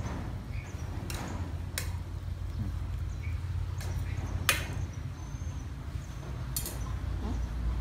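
Metal ladle clinking against a stainless steel cooking pot about five times as soup is stirred and ladled, the loudest clink just past halfway, over a steady low rumble.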